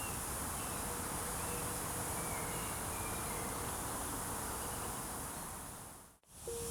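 Steady woodland ambience with a high buzzing hiss of insects. It fades away about six seconds in.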